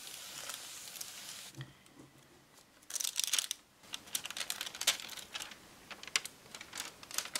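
Embossing powder crackling as it melts under a hot iron pressed on baking paper; about a second and a half in the crackling stops. Around three seconds in the baking paper is peeled off the card with a loud crinkling rustle, followed by a few sharp clicks of paper being handled.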